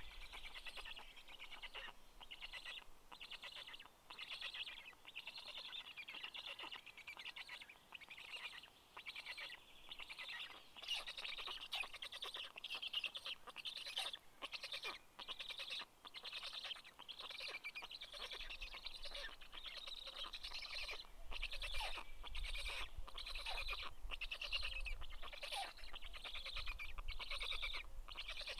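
Black stork chicks calling in rapid, chattering bursts, almost without pause, begging as the parent bends its bill down to feed them.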